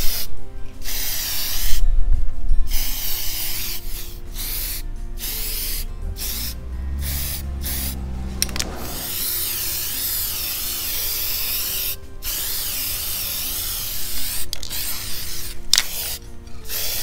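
Some-Q (染めQ) aerosol spray can hissing as it sprays dye paint onto a plastic scooter seat, in short bursts with brief pauses and a few longer unbroken sprays of several seconds in the middle.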